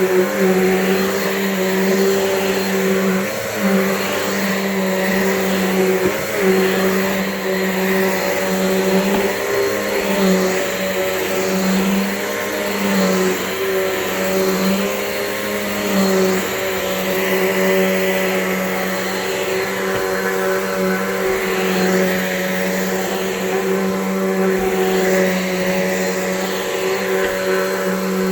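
Bissell Cleanview 12-amp upright vacuum cleaner running on carpet, a steady motor hum and rush of air, with small dips and swells as it is pushed back and forth.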